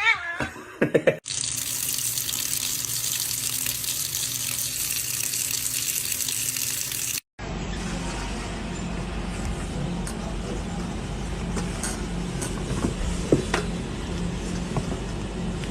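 Water running steadily from a tap for about six seconds, then cut off abruptly. Afterwards there is a steady low hum with a few faint clicks.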